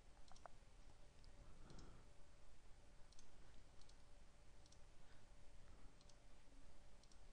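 Faint computer mouse clicks, a handful spread irregularly as menu items are selected, over a quiet background with a faint steady hum.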